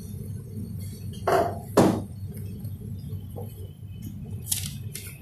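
Coffee-shop background noise: a steady low hum with clinks and clatters of dishes and glassware, the loudest two close together about a second and a half in.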